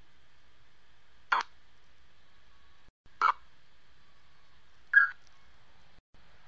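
Short chopped blips of sound from an EVP session played through a phone's speaker: three brief bursts roughly two seconds apart over a faint steady hiss, the third the loudest. The host listens to them as spirit answers.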